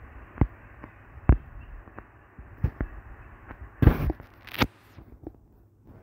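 Irregular sharp clicks and taps, about a dozen, over a faint steady hiss, with a louder cluster of knocks about four seconds in.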